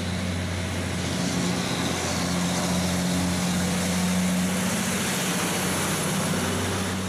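Cab-over semi-trailer truck hauling a container, its diesel engine pulling with a steady low drone while its tyres hiss through spray on a wet road.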